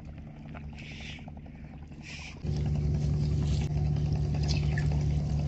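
A steady low hum like a running engine, faint at first, that jumps much louder about two and a half seconds in and then holds steady.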